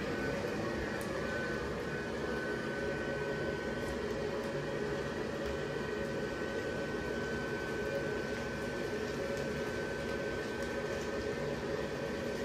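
Gemmy YF60 blower fan of an inflatable Christmas tree running steadily at full speed with a high, even whine, filling the tree with air.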